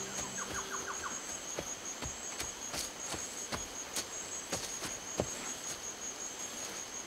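Steady, pulsing high chirring of insects, with irregular sharp clicks of footfalls from people and a horse walking a dirt forest path. A held music chord fades out right at the start.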